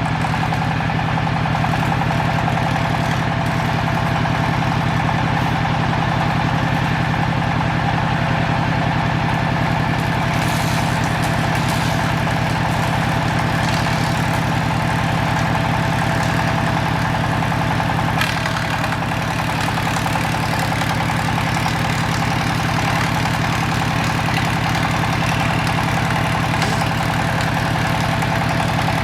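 A woodworking machine running steadily, a constant engine-like drone with a steady whine, not speeding up or slowing; a few faint ticks come through about ten seconds in and again near two-thirds of the way.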